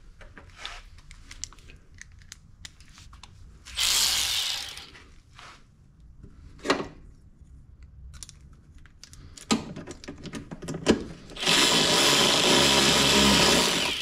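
Cordless electric ratchet running a bolt in. It gives a brief run about four seconds in and a longer run of about two and a half seconds near the end, with small tool clicks and rattles between.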